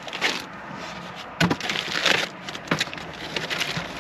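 Box and packaging being handled during an unboxing: crackling and rustling, with several sharp knocks spread through.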